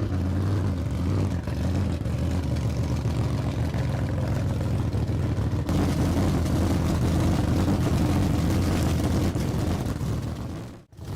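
A car engine running steadily at idle with a low, even rumble. It stops abruptly near the end.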